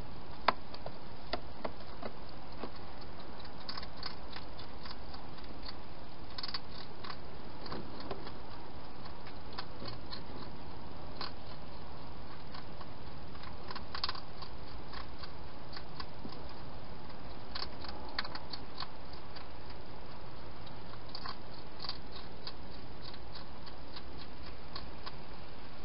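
Wild hedgehog eating from a bowl inside a plastic feeding box: scattered clusters of small crunching clicks over a steady hiss.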